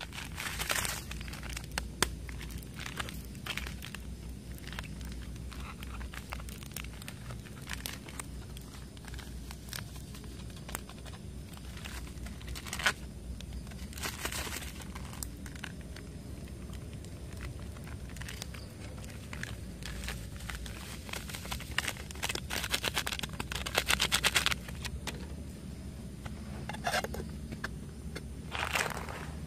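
Wood campfire crackling and popping with sharp irregular snaps. Several bursts of crinkling and scraping handling noise come about a second in, around halfway, at several points in the last third, and near the end.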